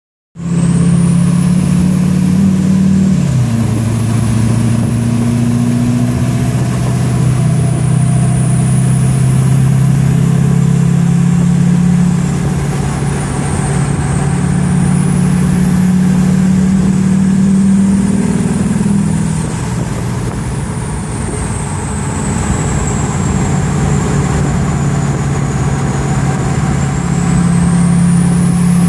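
High-pitched whistle of a Danville billet 72 mm turbocharger on a fully built LLY Duramax 6.6-litre V8 turbodiesel. The whistle rises and falls slowly as the engine's revs change, over the steady run of the diesel.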